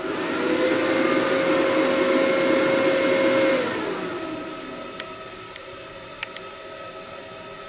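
Internal motor of a Leica HistoCore Pearl tissue processor running during its power-on self-test. It comes up at once to a steady whine, holds for about three and a half seconds, then winds down. A few light clicks follow near the end.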